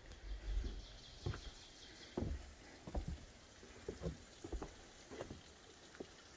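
Footsteps on wooden deck boards: a series of soft, uneven thuds at a slow walking pace.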